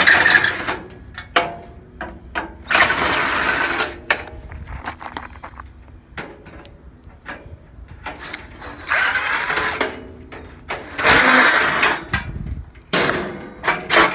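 A handheld power tool run in about five short bursts of a second or so each, with small knocks and rattles of metal parts between them, while a pool heater is taken apart.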